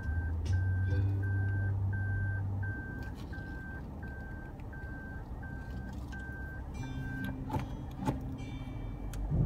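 In-cabin reversing warning beep: a steady single-pitch beep repeating about twice a second, stopping about seven seconds in, over background music. A couple of knocks come near the end.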